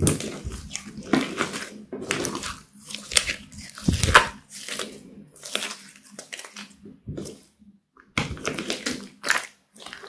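Sticky slime with eyeshadow worked into it, squeezed and stretched by hand: irregular wet squelches, pops and clicks, with a short pause about three-quarters of the way through.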